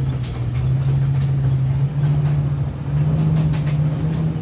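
Hotel shuttle bus engine running with a steady low drone that steps up in pitch twice, about two and three seconds in.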